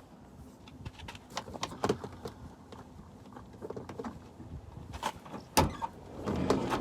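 Scattered clicks and knocks from handling a VW T4's sliding door, its handle and latch, with one sharp knock about five and a half seconds in.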